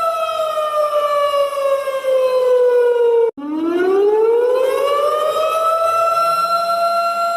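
Warning siren sounding one pitched wail: it holds steady, slides slowly down in pitch for about three seconds, cuts out for an instant, then rises back up and holds its tone again.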